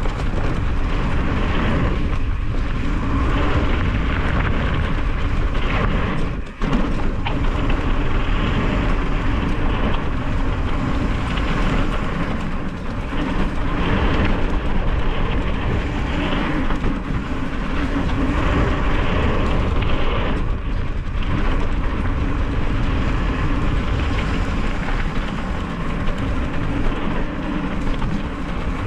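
Loud, steady rumbling noise of a mountain bike ride on dirt trail: wind buffeting the camera microphone and tyres rolling over the ground, with a brief drop in level about six seconds in.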